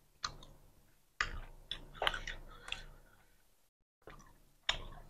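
Eating sounds of roti canai eaten by hand: scattered soft wet clicks and smacks of chewing and lips, with faint squelches of the curry-soaked flatbread. The sound drops out completely for a moment just before the four-second mark.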